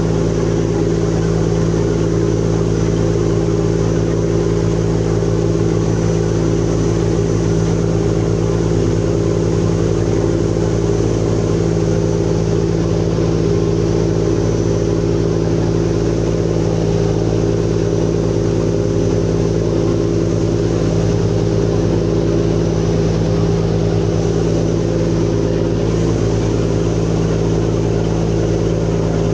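Riverboat's diesel engine running steadily at cruising speed, heard from on board: a constant low hum made of several steady tones, with the rush of water and wind beneath it.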